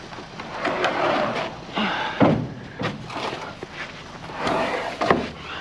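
A heavy pallet being shoved and dragged during loading: scraping broken by two loud thuds, about two and five seconds in, with a smaller knock between them.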